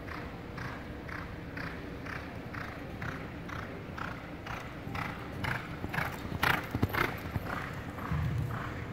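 Horse loping on soft arena footing: a steady rhythm of its stride at about two to three beats a second. A few louder, sharper knocks come about six to seven seconds in.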